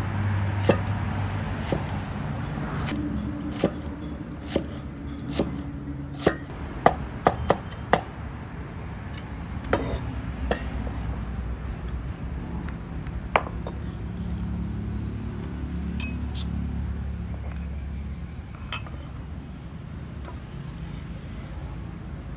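Knife chopping carrot sticks into small dice on a wooden chopping board: sharp knocks of the blade on the board, irregular and spaced out, thinning after about ten seconds. A steady low hum runs underneath.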